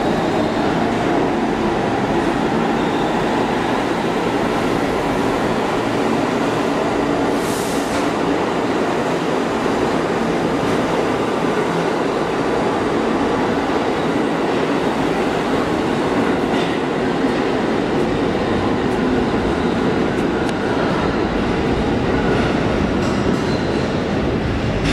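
New York City subway train running steadily: a continuous rumble and rattle of wheels on the rails and traction motors, with no pause or change in level.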